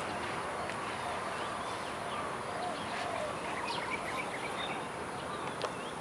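Open-air ambience: scattered short bird chirps over a steady background hiss, with a thin high steady tone.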